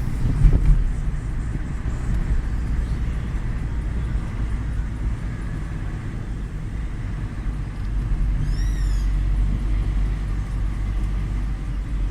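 Steady low rumble of a moving road vehicle, with a brief knock about half a second in and a short high chirping call about two-thirds of the way through.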